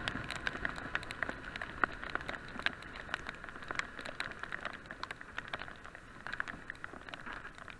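Hard rain: raindrops tap irregularly on the action camera's case over a steady rushing hiss of wind and wet road. The rush fades gradually as the motorcycle slows.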